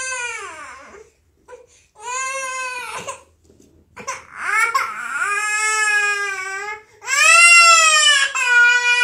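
Toddler crying: four high-pitched wails with short breaths between, the later ones longer and louder.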